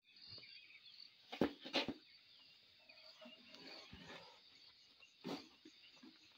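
A steady, high-pitched chorus of insects chirping, with a few louder thuds about a second and a half in and again a little after five seconds.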